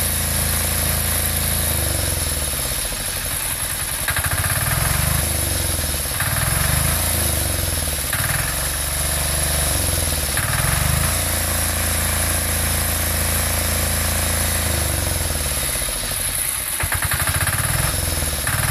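A 6 hp diesel engine running steadily, still cold after a −5 °C cold start. It is revved up briefly and let back down about every two seconds.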